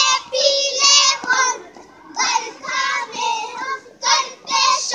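A group of young girls singing together in unison, in short phrases of about a second with brief pauses between them.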